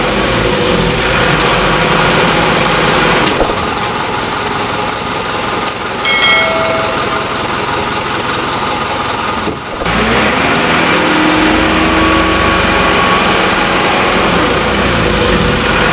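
Huina 1540 remote-control dump truck driving through mud, its motor and gears whining steadily and rising and falling in pitch as the throttle changes. It cuts out briefly about ten seconds in, then picks up again.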